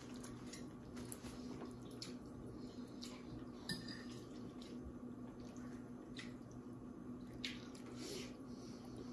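Quiet sounds of a small child eating: a spoon scraping and clicking in a bowl of pasta, with small wet mouth and finger-licking sounds and one sharper spoon clink a little under four seconds in, over a faint steady hum.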